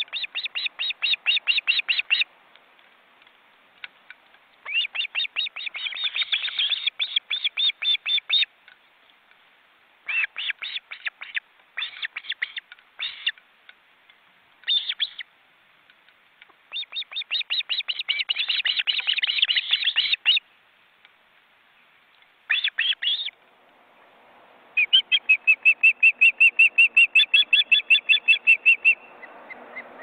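Ospreys at the nest calling: bouts of rapid, repeated high chirps lasting a few seconds each, broken by short pauses, about eight bouts in all.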